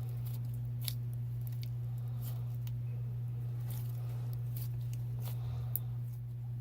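Slime being squeezed and stretched by hand, giving scattered small clicks and pops at irregular intervals over a steady low hum.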